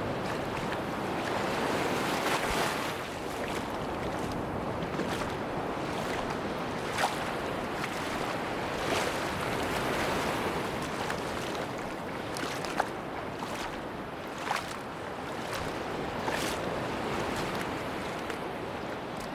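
Sea waves washing onto a beach, swelling and easing every few seconds, with a few sharp clicks scattered through.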